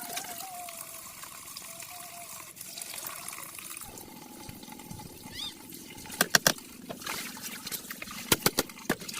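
Water trickling and splashing steadily. In the second half, two quick runs of sharp knocks stand out as the loudest sounds.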